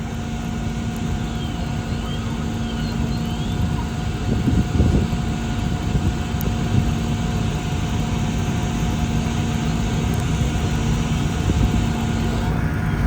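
A steady low engine rumble with a constant hum running through it.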